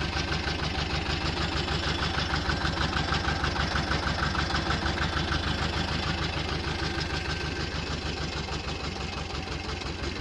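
Pasquali 425 compact tractor's 30 hp engine idling steadily with an even, rapid beat, easing a little quieter near the end.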